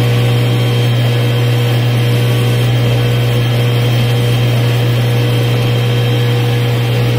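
Flatbed digital CNC cutting machine running as it cuts printed board: a steady, loud, low hum with a thin, steady whine above it.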